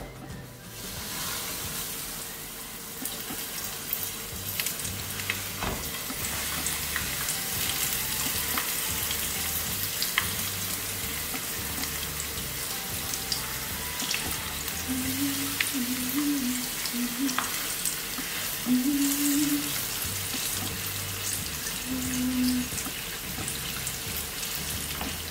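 Corn-flour-coated sarıkanat (young bluefish) frying in hot oil in a pan: a steady sizzle with scattered crackles and spatters, starting about half a second in as the first fish goes into the oil and building as more fish are laid in.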